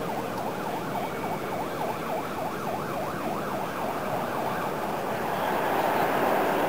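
Emergency-vehicle siren in a fast yelp, its pitch rising and falling about two to three times a second, over steady street noise; the yelp fades after about five seconds.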